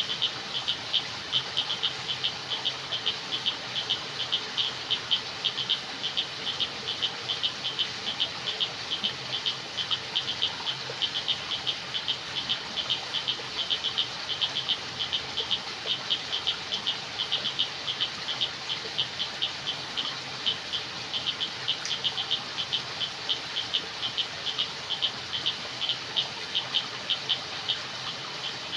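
Night chorus of frogs and insects: a steady run of quick, high-pitched calls, several a second, over a soft, even hiss.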